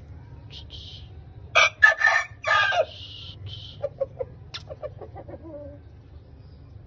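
Aseel rooster crowing once, a short crow of about a second and a half broken into three parts, followed by a few low clucks.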